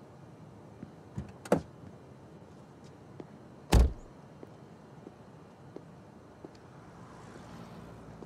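A car door clicking open about a second and a half in, then shutting with a heavy thump near four seconds. A few light footsteps on pavement follow.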